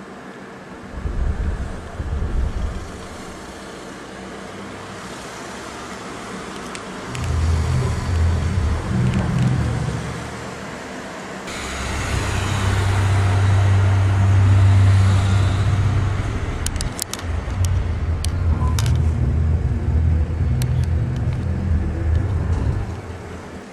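A loud, low rumbling drone that swells and fades several times, loudest around the middle, with a few sharp clicks in the second half.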